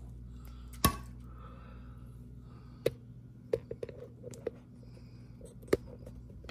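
Scattered light clicks and taps of utensils and dishes while chicken tenders are dipped in egg wash and laid in panko crumbs, the sharpest about a second in, over a low steady hum.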